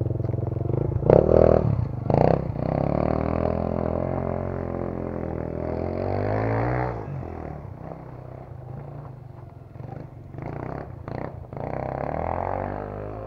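80cc two-stroke dirt bike engine being revved in two sharp blips about a second in, then pulling away with the pitch rising and falling through the revs. It grows fainter after the middle and revs up again near the end.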